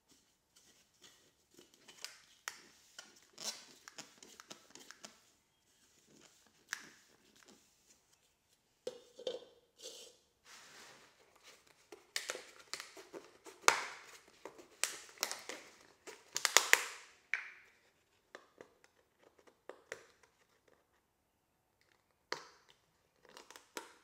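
Hand work at a metal lathe's gearbox: scattered sharp clicks and knocks with short scuffing and rustling noises, irregular and busiest around the middle.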